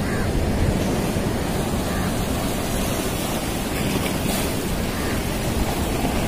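Sea surf washing against breakwater rocks, with steady wind rumble on the microphone.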